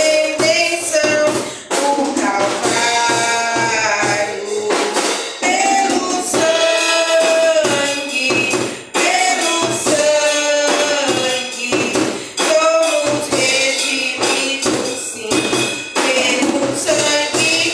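Worship song with voices singing a melody and a tambourine hitting along in rhythm.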